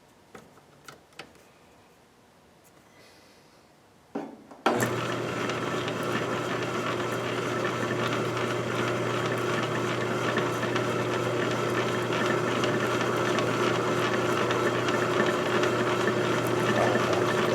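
A few faint handling clicks, then a small electric power tool is switched on about four and a half seconds in. Its motor runs loud and steady with a constant hum.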